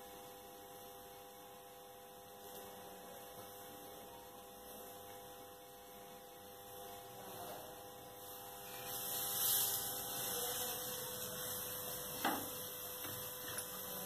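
Faint steady hum made of a few even tones. About nine seconds in a soft hiss swells and eases, followed by a light knock about three seconds later.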